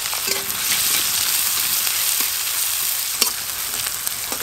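Sliced onions sizzling in hot mustard oil in a metal kadai, a steady frying hiss. A spatula stirs them, with a few sharp scrapes and taps against the pan.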